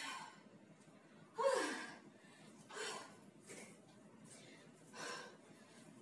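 A woman breathing hard from exercise: short, sharp gasping breaths about every second or so, the loudest a voiced huff about a second and a half in.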